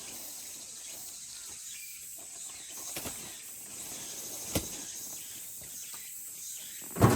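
A steady high-pitched outdoor hiss, with a couple of soft clicks and one louder thump near the end.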